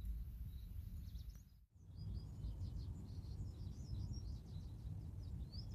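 Small birds chirping in quick series of short calls, with one rising call near the end, over a steady low wind rumble on the microphone. The sound drops out for a moment a little under two seconds in.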